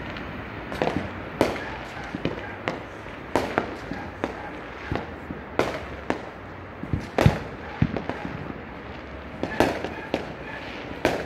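New Year's fireworks and firecrackers going off around the neighbourhood: irregular bangs and pops, at times several a second, the loudest about seven seconds in, over a steady din of more distant ones.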